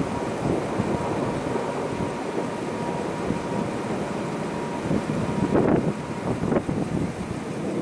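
Gusts of wind buffeting the microphone, swelling hardest about five and a half and six and a half seconds in. A faint, thin steady tone runs under it and stops about five seconds in.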